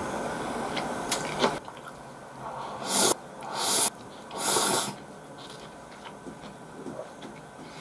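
Cold ramen noodles (hiyashi chuka) slurped into the mouth three times in quick succession, each slurp a loud airy hiss lasting under a second. Soft chewing follows.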